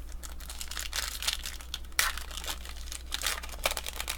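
Trading cards and their pack wrapper being handled: irregular crinkling and rustling, with a sharp crackle about two seconds in.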